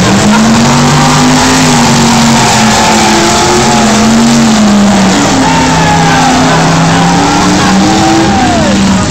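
Race car engines running hard at high revs, their pitch rising and falling as the cars accelerate and lift off. The loudest car is spinning its tyres in a cloud of smoke.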